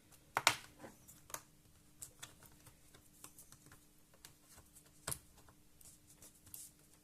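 Small clicks and taps of hands working on a laptop being taken apart, with a sharper click about half a second in and another about five seconds in, over a faint steady hum.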